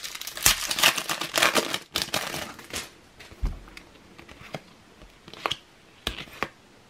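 Foil booster pack of trading cards being torn open and crinkled, a dense crackling rustle over the first few seconds, followed by sparser rustles and clicks as the cards are handled and slid apart.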